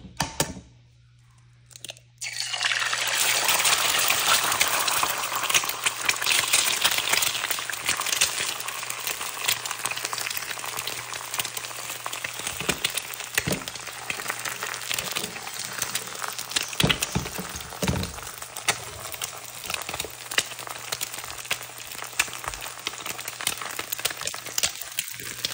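An egg frying in hot ghee in a stainless steel pan: a loud crackling sizzle starts suddenly about two seconds in and slowly eases off.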